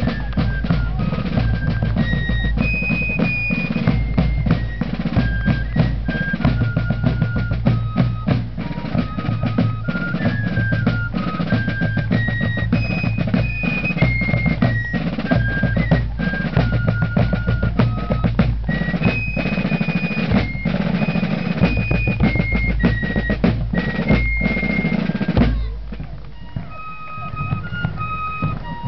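Fife and drum corps playing a march: fifes carry a stepping melody over rolling rope-tension snare drums and bass drum beats. Near the end the drums stop and the fifes carry on more quietly.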